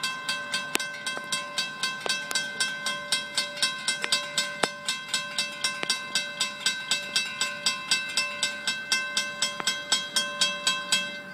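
Railroad crossing warning bell ringing in a fast, even rhythm of about three to four strikes a second while the crossing's gate arms lower.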